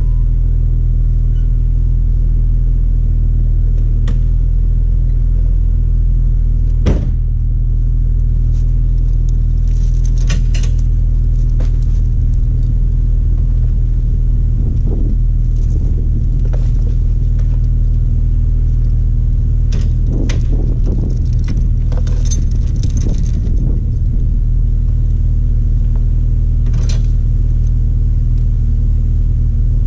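Jeep Wrangler TJ's 4.0 L inline-six idling steadily, with short metallic clinks and jingles of a tow chain being handled and hooked up several times.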